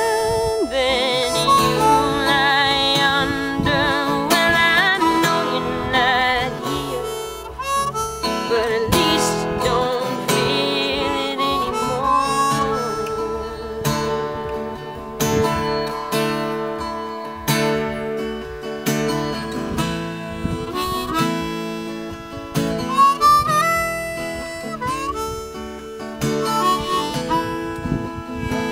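Harmonica playing a solo over a strummed acoustic guitar, its notes wavering in the first few seconds.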